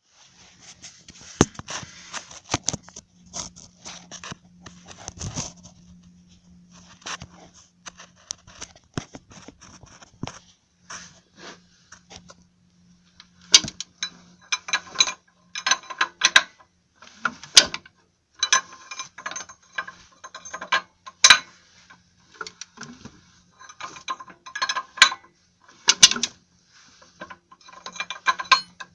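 BMW M50 straight-six engine with an irregular clicking knock from the timing chain area, coming in uneven clusters over a faint steady hum; the cause is unknown to the owner.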